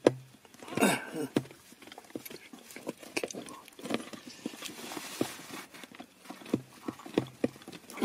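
Irregular small clicks and taps of plastic as a hand works a stiff wiring-loom connector on a BMW E36's heater wiring, wiggling and pulling it loose.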